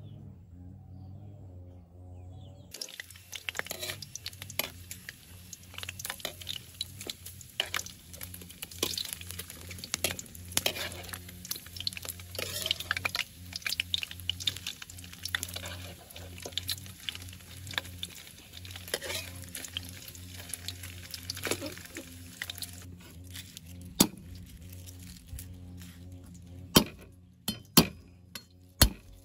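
Metal cooking utensils clinking and scraping against cookware as food is stirred, over a faint sizzle. A few louder separate clinks come near the end.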